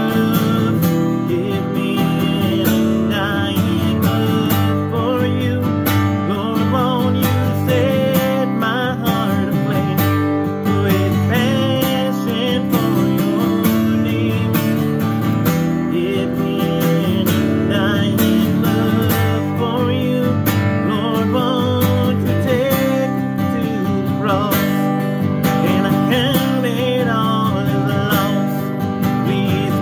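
Acoustic guitar strummed steadily in chords, with a man singing a worship song over it.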